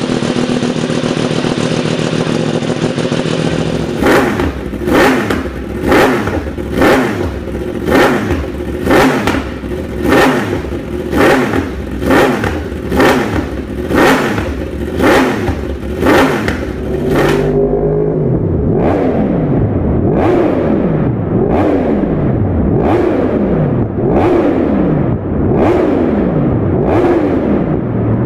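Yamaha R1 crossplane inline-four with an aftermarket exhaust, first running steadily, then blipped hard about once a second around a dozen times at standstill. From about seventeen seconds in, the engine note rises and falls over and over as the bike is ridden.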